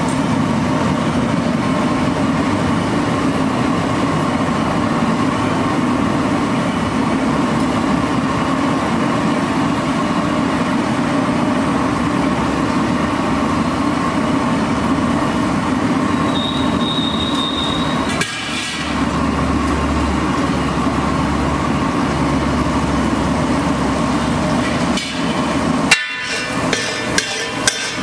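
A steady, loud rushing din for most of the clip. Near the end, a steel spatula starts clacking and scraping against a large flat iron tava, tossing chopped vegetables: a quick, uneven run of metallic knocks.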